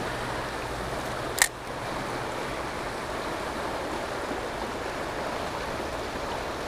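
Shallow river water running steadily over riffles, with a single sharp click about a second and a half in.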